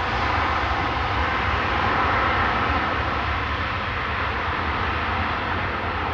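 Jet airliner engines, a steady broad rush that swells about two seconds in and then slowly eases off, over an uneven low rumble.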